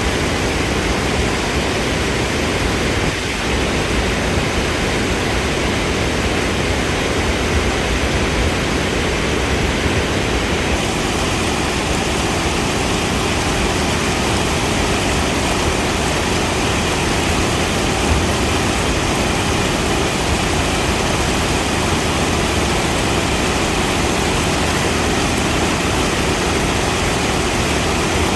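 Waterfall rushing steadily, an even wash of water noise.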